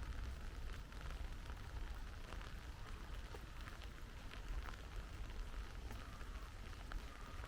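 Steady rain falling, with many separate drops ticking and pattering, over a low, steady rumble.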